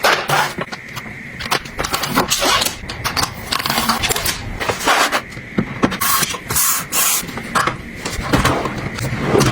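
Close-up handling noises: irregular scraping, rustling and light knocks of objects being moved and set down.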